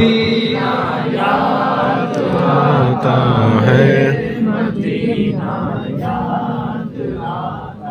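A man chanting devotional verse in long, drawn-out melodic phrases into a microphone, heard through a loudspeaker system.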